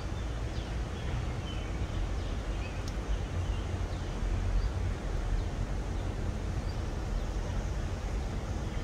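Outdoor background noise: a steady low rumble with a few faint, high bird chirps and a single light click about three seconds in.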